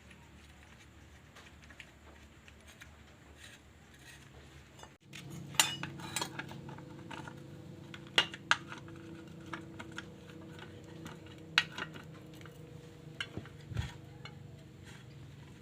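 Scattered sharp metallic clinks and taps of tools and small metal parts handled on a brush cutter's gear head, a few seconds apart, starting about a third of the way in over a low steady hum.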